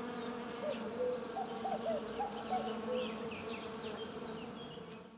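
Dragonfly wings buzzing in a steady low hum, with faint short chirps and a rapid high ticking behind it, fading toward the end.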